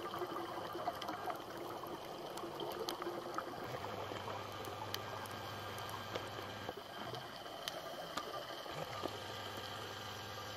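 Underwater ambience heard through a diving camera's housing: a steady watery hiss with many faint scattered clicks. A low hum comes in about four seconds in, drops out, and returns near the end.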